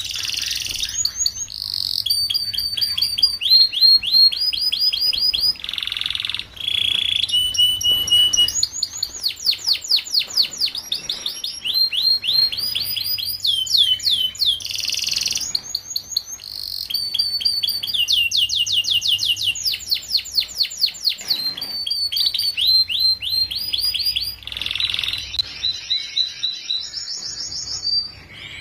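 Domestic canary singing a long song made of trills: runs of fast, evenly repeated short notes, some rising and some falling, switching to a new run every second or two with brief breaks between them.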